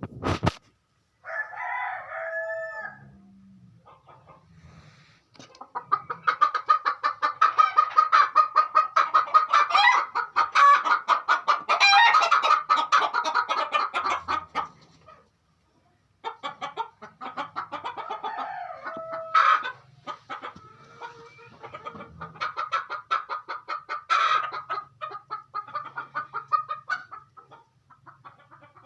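A hen cackling loudly: long runs of fast, repeated clucks broken by a few drawn-out calls, the kind of cackle a hen gives around laying. A sharp click comes right at the start.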